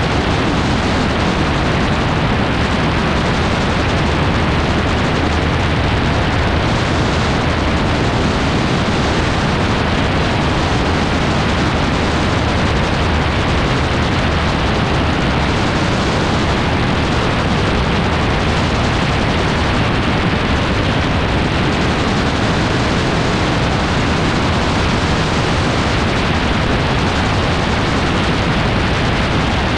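Steady, loud rush of wind and engine noise aboard an AutoGyro MTO Free open-cockpit gyroplane in flight, with wind hitting the microphone.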